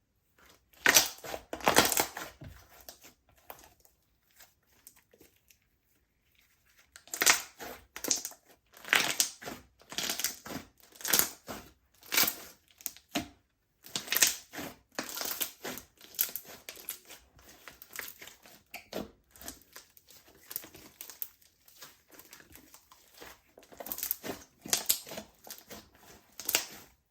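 Slime being squeezed and kneaded by hand, giving a run of irregular crackling pops. The crackling stops for about three seconds a few seconds in, then carries on.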